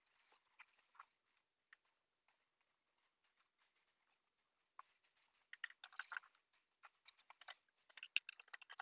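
Faint, scattered rustling and clicking of cucumbers being handled in a metal strainer, sparse at first and busier from about five seconds in.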